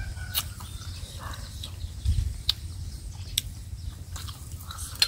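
Close-up mouth sounds of someone chewing food, with a few sharp, wet lip-smack clicks spread through, over a steady low rumble.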